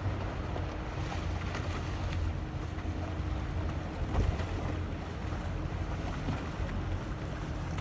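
Motorboat engine running steadily with wind buffeting the microphone and water rushing past, and one brief knock about four seconds in.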